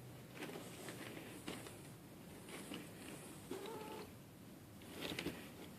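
Domestic cat moving about in a box: faint scratching and rustling, with one short meow about halfway through.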